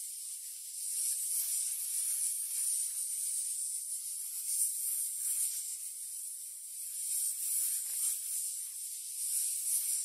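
Snake hissing: a continuous high, airy hiss that swells and eases unevenly.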